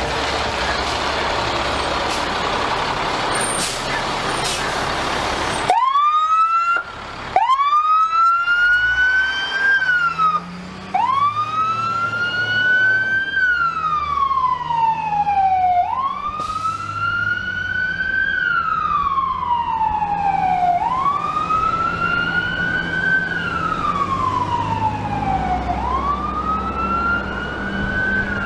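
Fire rescue truck's siren wailing, sweeping up and down in long cycles about every five seconds. The siren comes in suddenly about six seconds in, after a stretch of steady truck and road noise.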